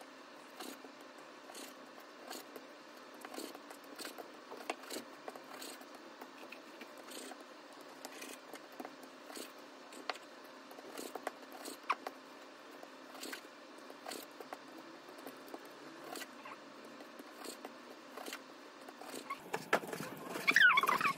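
Kitchen knife cutting raw pork on a plastic cutting board: faint, irregular taps of the blade against the board, with a louder stretch near the end.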